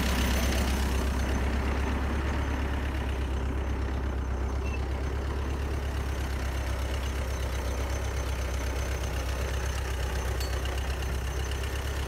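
Tractor engine running steadily with a low, even hum while it pulls a plough. The hum eases slightly over the first couple of seconds, then holds.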